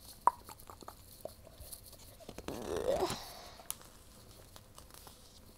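Board book being handled as it is turned and held up: light clicks and rustles of its cardboard pages, with a short, louder rising sound about two and a half seconds in.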